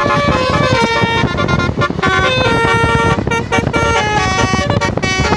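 Bus telolet horn, a set of multi-tone horns, playing a quick tune of stepped notes that keep changing pitch, over a low rumble.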